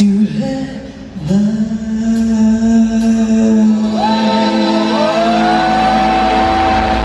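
Live show music with singing: voices hold long sustained notes and slide up into new ones. A deep bass comes in about five seconds in.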